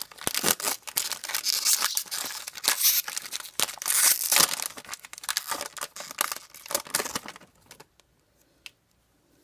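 Foil wrapper of a Pokémon XY booster pack being torn open and crinkled, a dense crackling that stops about seven seconds in.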